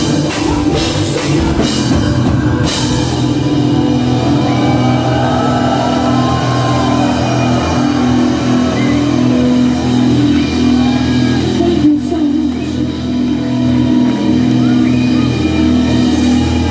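Metal band playing live through a club PA: a run of drum hits over distorted guitars for the first few seconds, then the guitars hold long ringing chords to the end.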